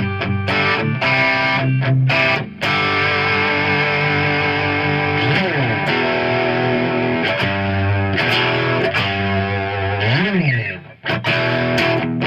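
Electric guitar played through a tube overdrive pedal, a distorted lead phrase of sustained notes with string bends, into a Hiwatt amp.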